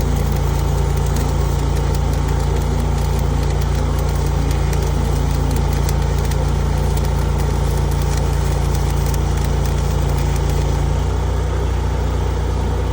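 An engine idling steadily, with a constant low hum.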